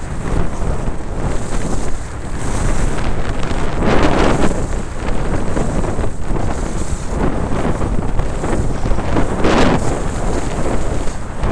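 Wind buffeting a moving camera's microphone as a skier descends a groomed piste, with skis hissing and scraping over packed snow. The noise swells strongly twice, about four and nine and a half seconds in.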